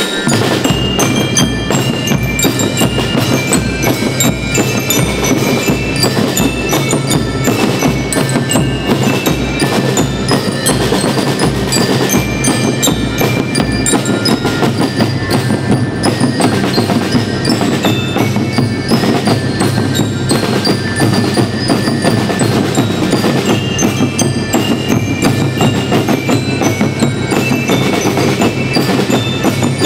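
Marching school rhythm band playing: bell lyres ring out a melody over snare drums and bass drums keeping a steady march beat.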